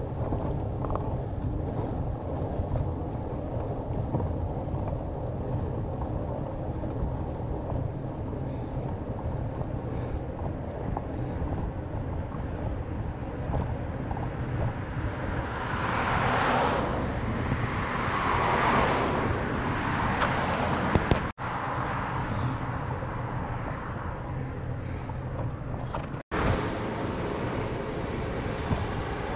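Wind buffeting the microphone of a moving bicycle's camera, with a steady low rumble, and a car passing on the road alongside about halfway through. The sound cuts out abruptly twice for an instant near the end.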